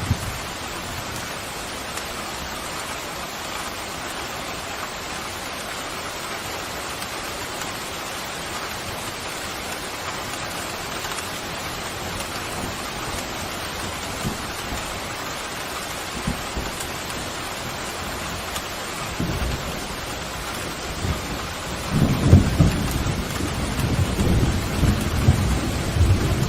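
Steady rain pouring. About twenty seconds in, a low rolling rumble of thunder begins and grows loudest near the end.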